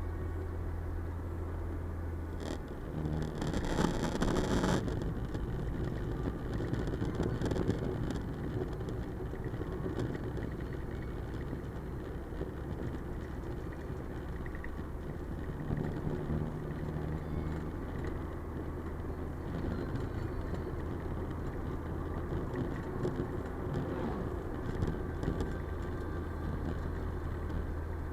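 Car driving on a road: steady low engine and tyre drone, with a louder rushing swell from about three to five seconds in.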